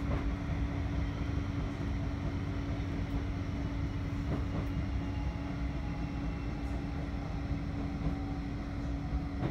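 Bombardier Flexity 2 tram running, heard from inside the passenger saloon: a steady low rumble with a constant hum, a faint whine that sinks slowly in pitch in the second half, and a faint knock near the start and another about halfway.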